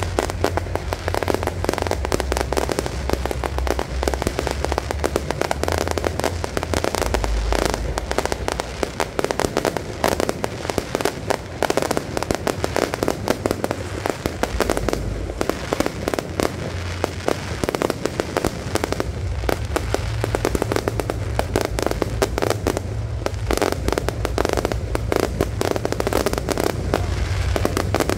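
Beehive fireworks going off in a massed barrage: a dense, unbroken crackle of rocket and firecracker bangs, many a second.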